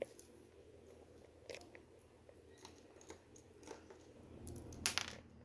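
Plastic toy figures being handled: scattered small clicks and rustles, with a louder clatter about five seconds in.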